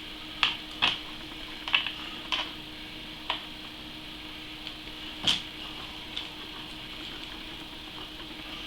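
A few sharp, scattered clicks and taps of small hardware being handled and fitted on a motherboard, the loudest about five seconds in, over a steady faint hum.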